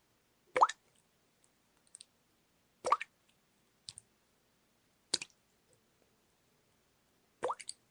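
Water dripping: four drops fall at an even pace, one about every two and a quarter seconds, each a short plop that rises in pitch, with fainter small drips in between.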